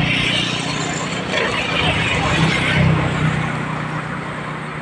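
Road traffic crossing a bridge: a steady engine hum with tyre noise, swelling as vehicles pass, once near the start and again about three seconds in.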